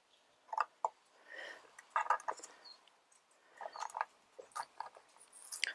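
Gritty potting mix crunching and rustling as a succulent is settled into a small plastic pot and the soil is pressed down by hand, with a few light clicks and taps of the pot.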